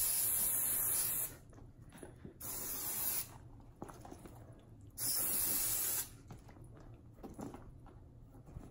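Aerosol can of Apple Garde rain and stain repellent spraying leather in three short hissing bursts: one at the start, one about two and a half seconds in, and one about five seconds in. There are light handling sounds between the bursts.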